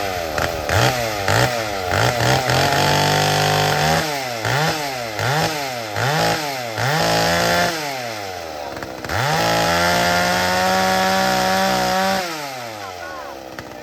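Old McCulloch two-stroke chainsaw being blipped: a string of quick throttle revs rising and falling, held wide open for a few seconds, then settling back to idle. The owner says its carburettor's low-speed jet was set fat, running it rich off idle.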